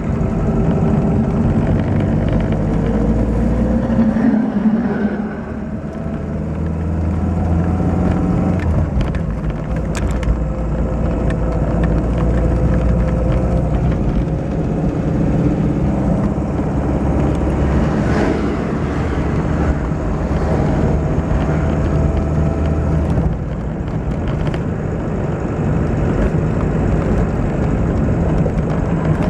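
Dacia car's engine running under way, heard from inside the cabin with road noise. Its pitch climbs slowly as the car pulls and drops away at gear changes, about five seconds in and again later on.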